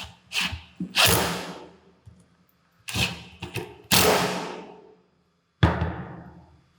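A series of five or so sharp knocks and clanks from work on the fan's parts, each ringing out for up to a second before fading.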